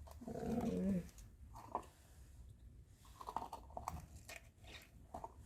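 Faint, scattered small clicks and scrapes of a tool working the tiny springs out of a car door lock cylinder, after a short murmured voice in the first second.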